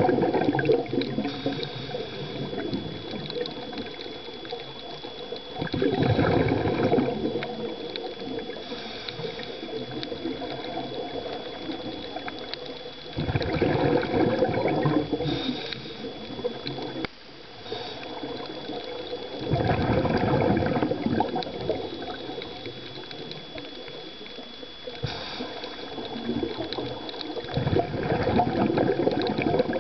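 Scuba diver's exhaled breath bubbling out of the regulator underwater: a loud surge of bubbles about every seven seconds, each lasting about two seconds, with quieter breathing in between.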